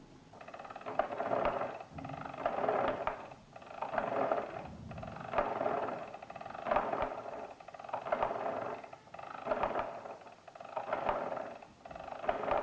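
Arithmometer mechanical calculator being cranked by hand: each turn of the handle gives a short clattering whirr of gears and pinned drums. There are about nine turns, one every second and a half or so.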